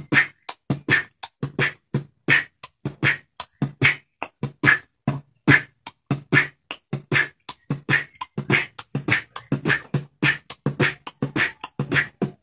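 Beatboxed drum and bass pattern: vocal kick, a hi-hat made with the tongue against the palate, and a breathy snare, repeated in a fast, steady rhythm.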